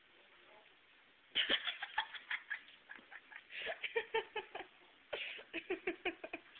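A person giggling in three bouts of quick, short laughs, the first starting about a second and a half in.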